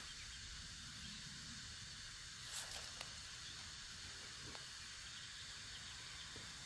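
Steady faint hiss, with a brief short sound about two and a half seconds in and a smaller one just after.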